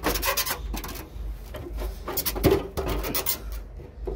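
Front fender of a Nissan 240SX being handled and wiggled loose by hand: irregular rubbing, scraping and clicking of the panel against the body, with one louder knock about halfway through.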